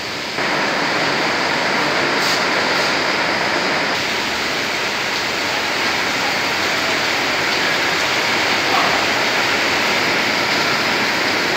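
Rain falling steadily: a dense, even hiss that gets louder about half a second in.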